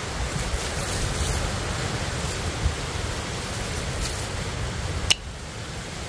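Wind buffeting the microphone outdoors: a steady rushing noise with a fluttering low rumble. A single sharp click comes about five seconds in, and the rush drops a little after it.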